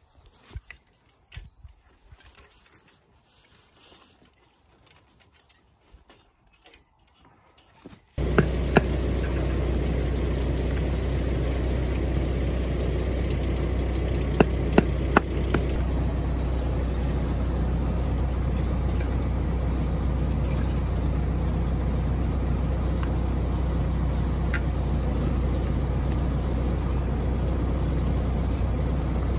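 Quiet at first with faint clicks. About eight seconds in, a telehandler's diesel engine starts idling close by and runs steadily, with a few sharp knocks on top of it around the middle.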